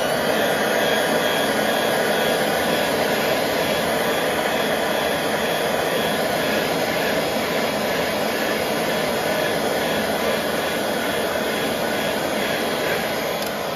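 Heat gun running steadily, blowing hot air onto freshly airbrushed paint to help it settle. The noise dies away at the very end.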